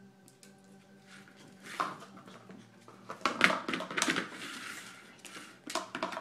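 Two Maltese dogs scuffling in play on a hardwood floor: scattered clicks and several short, noisy bursts of scrabbling and snuffling close to the microphone, loudest about three to four seconds in.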